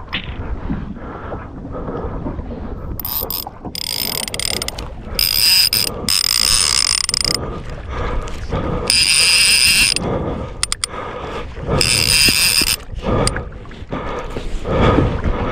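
Fishing reel's clicker drag buzzing as line is pulled off in several runs of a second or two each, a hooked king salmon taking line.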